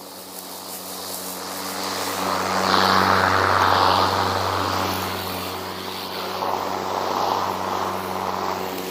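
Ego Power Plus 56-volt battery self-propelled lawn mower running with its blade spinning: a steady hum and whoosh that grows louder about three seconds in, dips, swells again near seven seconds, then eases off.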